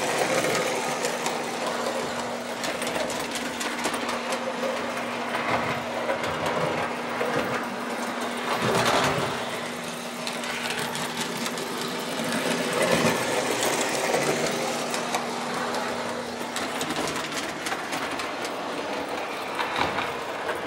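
1930s Lionel 249E tinplate O-gauge steam locomotive running on three-rail track, its electric motor and gears whirring steadily with the wheels clicking over the rails. The motor runs smoothly at only about 9 volts, a sign of a healthy motor. A steady hum stops about three-quarters of the way through.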